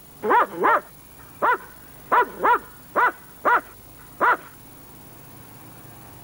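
German Shepherd-type dog barking menacingly: eight short, sharp barks in quick succession, stopping about four and a half seconds in.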